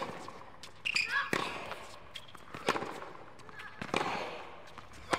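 Tennis ball struck back and forth with racquets in a rally, a hit about every 1.3 seconds, five in all.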